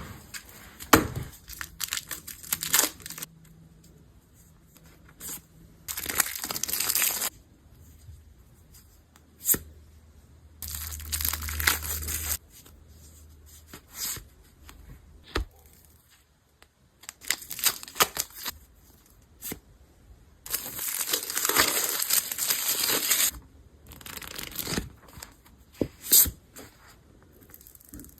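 Packaging being torn open and crinkled by hand, in several stretches of one to three seconds, with small clicks and taps in between.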